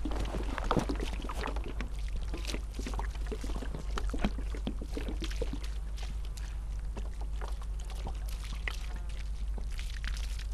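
A metal shovel scraping and digging into loose soil, with dirt tipped off the blade pattering onto a mound of earth in irregular strokes. A steady low hum runs underneath.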